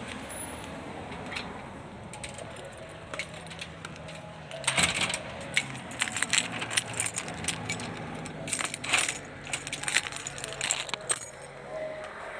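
Fireworks crackling: a dense run of sharp pops and crackles that starts about five seconds in and goes on for about six seconds.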